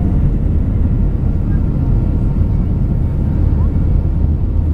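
Steady low rumble of an Airbus A320-200's engines and rushing airflow, heard inside the cabin over the wing on approach with flaps extended.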